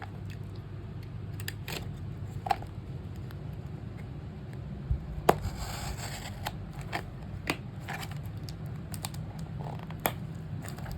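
A small package being opened by hand: scattered clicks and scratches, with a short rustle of packaging about halfway through.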